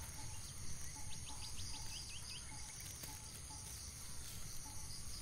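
Insects calling steadily in a high, continuous drone, with a quick run of about eight short bird chirps from about a second in to halfway through.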